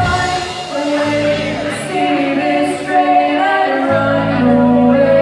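A band playing a song with a sung melody over held bass notes and chords. The drums drop out for this quieter passage.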